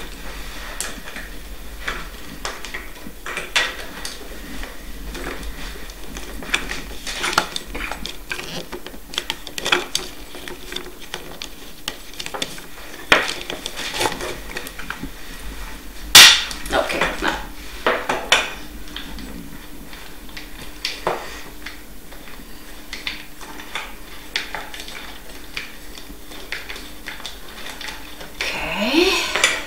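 Hard plastic parts of a metal detector being handled and fitted together: irregular clicks, taps and rattles, with one sharp, loud knock about halfway through and a short rising scrape near the end.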